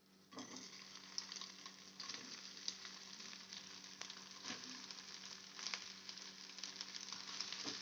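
Soaked, squeezed soya chunks frying in a little hot oil in a kadai: a steady sizzle with scattered crackles and pops, starting suddenly just after the start.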